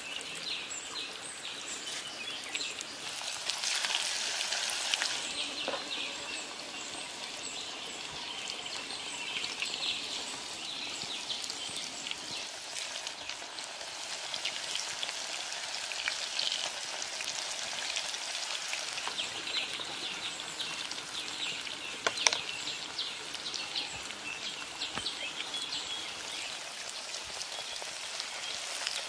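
Fish patties deep-frying in hot oil in a clay pot: a continuous crackling sizzle full of small pops, loudest about four seconds in, with the patties now and then moved with a wooden spatula.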